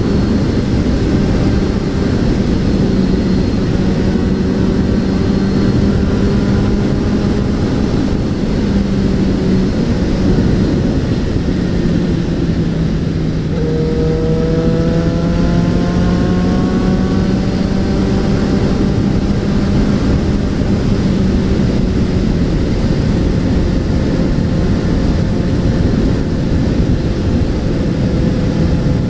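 Suzuki Bandit 650N inline-four motorcycle engine running on the move, under steady wind and road noise. About halfway through, the engine note changes and then climbs steadily as the bike accelerates.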